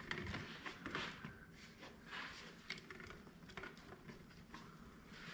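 Faint rustling and scattered small clicks of hands shoving a rubber air-intake hose onto its fitting on a compact tractor engine.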